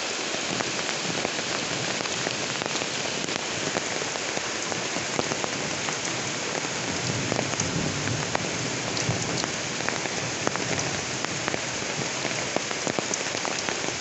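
Steady rain falling on a corrugated tin roof: a continuous hiss dotted with many sharp taps of single drops striking the metal.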